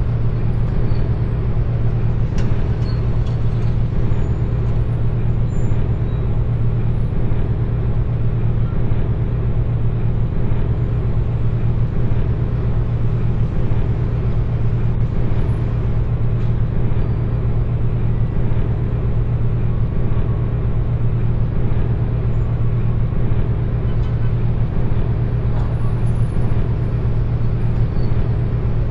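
Steady, loud mechanical rumble with a strong low hum, unchanging throughout.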